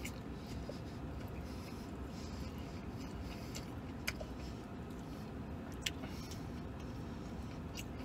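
Steady low rumble inside a vehicle cab, with a man chewing a mouthful of sandwich and a few faint clicks.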